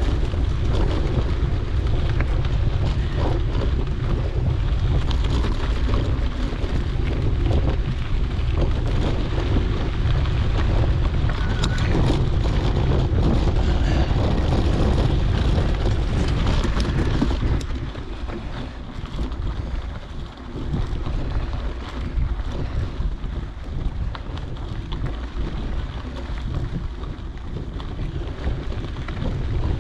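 Wind buffeting the microphone of a GoPro on a moving mountain bike, a steady low rumble and rush that eases somewhat about two-thirds of the way through.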